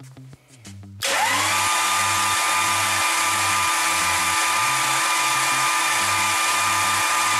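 Starter motor cranking a 454 big-block Chevy V8 with its spark plugs out, so there is no compression. It starts suddenly about a second in, its whine rising briefly in pitch, then runs steady and even with no chugging.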